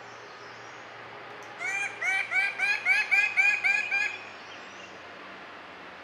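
Male bird-of-paradise giving a rapid series of about nine loud, arched calls, each rising then falling, at about four a second, starting about a second and a half in and lasting some two and a half seconds. These are its display calls, given as it raises its flank plumes.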